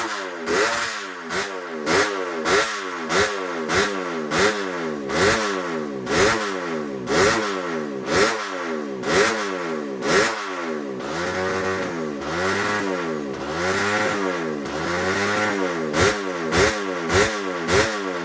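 Race motorcycle engine being revved in quick, repeated throttle blips, about two a second, each rise in pitch dropping straight back. Through the middle the blips slow into longer rises and falls before quickening again.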